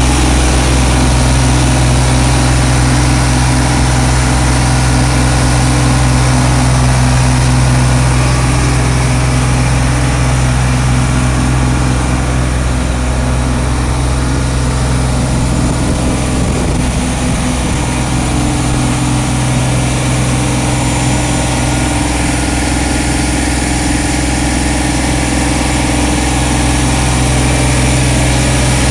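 Parked tanker truck's engine running steadily at idle, a loud, even low hum that does not change.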